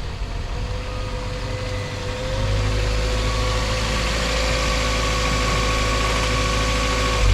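Car engine running steadily, getting a little louder and slightly higher in pitch about two seconds in.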